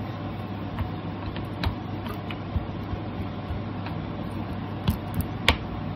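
A few light taps and knocks as hands press and pat stuffed paratha dough flat on a wooden board, over a steady low hum.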